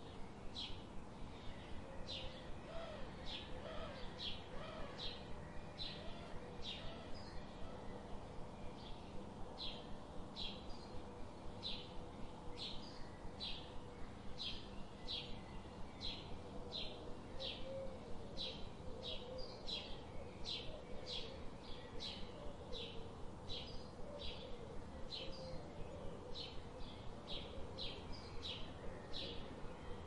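Short high chirps repeated at an even pace, nearly two a second, over faint outdoor background noise.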